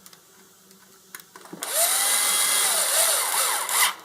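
A few faint clicks, then a small power tool, likely a cordless drill/driver, whirs for about two seconds, its pitch wavering, before it stops abruptly.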